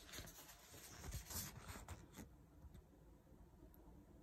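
Near silence, with a few faint rubs and rustles in the first two seconds as a rolled diamond-painting canvas is handled.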